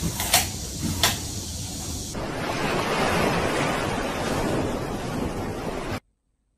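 Two sharp knocks, then from about two seconds in, ocean surf breaking and washing up a sand beach, a steady rushing that cuts off suddenly near the end.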